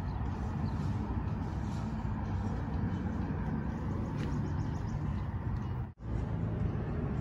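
Steady low outdoor rumble, broken by a brief dropout about six seconds in.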